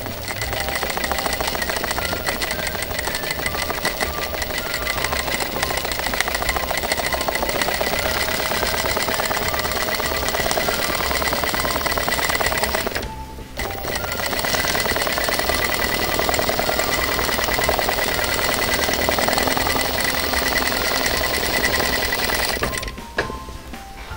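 Sewing machine stitching at speed during free-motion quilting through a layered quilt, its needle going in a rapid steady rhythm. It stops briefly about halfway, then runs again until shortly before the end.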